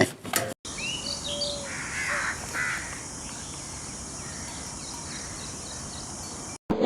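A bird gives a few harsh, rasping calls about two seconds in, over a steady high-pitched hiss of insects.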